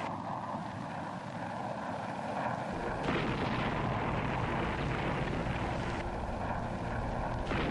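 Jet aircraft noise, a steady rushing sound without sharp impacts. A deeper rumble joins it about three seconds in.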